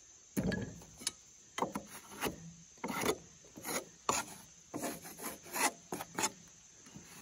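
Handsaw cutting into a stack of timber beams for tenons, in back-and-forth strokes about two a second, starting about half a second in and stopping shortly before the end.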